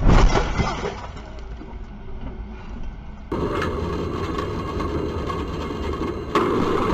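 A car collides with a box truck: a loud crash of impact and crunching debris at the start, dying away over about a second. About three seconds in, this gives way to the steady running noise of a tram heard from the driver's cab, with a sudden thump near the end.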